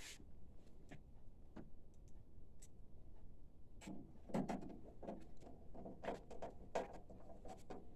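Scattered light clicks and knocks of printer chassis parts being handled and set in place by hand, sparse at first and more frequent from about four seconds in.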